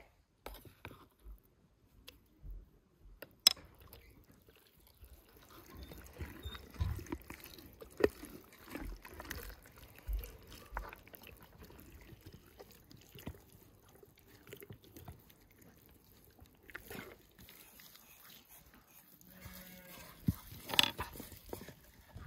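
Hands working spice paste into a whole raw duck on a wooden board: soft wet slaps and squelches, with scattered knocks of wood on wood, including a wooden pestle tapping in a wooden mortar near the start.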